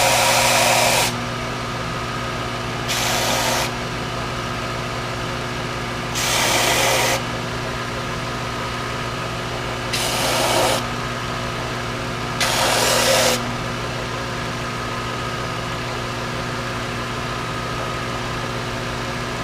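Belt sander running steadily, with five short bursts of sanding noise as the stacked fin edges are pressed against the belt, the last about 13 seconds in; after that the motor hums on alone.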